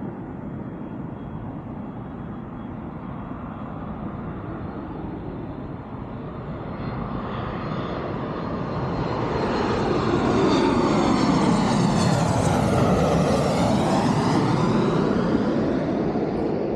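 Airplane on its landing approach passing low overhead: engine rush that builds to a loud peak about ten seconds in and holds, with a sweeping, phasing whoosh as it goes over.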